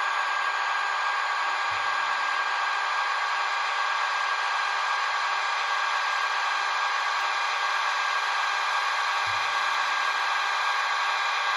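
Steady, high-pitched whirring of the Roco H0 EDK 750 model crane's small slewing motor and gearing as the superstructure turns round on its undercarriage.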